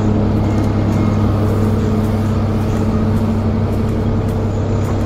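Minibus share-taxi (mikrolet) driving, heard from inside its cabin: a steady, loud engine and road drone.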